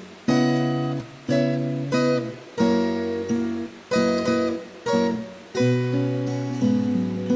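Background music: strummed acoustic guitar chords, about one strum a second.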